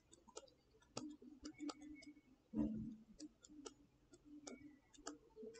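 Faint, irregular clicks and taps of a stylus writing on a tablet, with one duller knock about two and a half seconds in.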